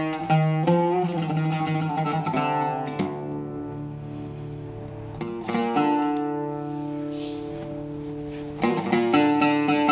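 Solo oud with a cedar soundboard, plucked with a pick. A run of quick notes gives way about three seconds in to held notes that ring out and fade, and quick plucking starts again near the end.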